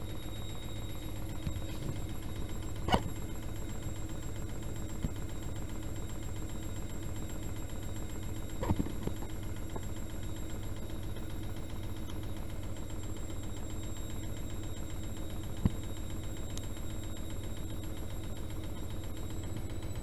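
Privileg Dynamic 6610 CN front-loading washing machine running mid-cycle with water in the drum: a steady hum, with a few sharp clicks or knocks.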